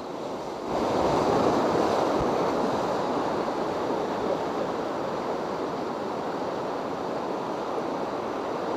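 Whitewater rapids rushing around a raft. The noise of the water is steady and gets louder about a second in.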